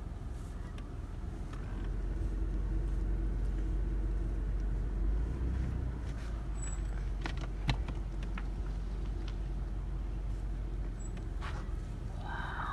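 Car running at low speed, heard from inside the cabin: a steady low rumble that gets louder about two seconds in. There are a few faint clicks and one sharp click in the middle.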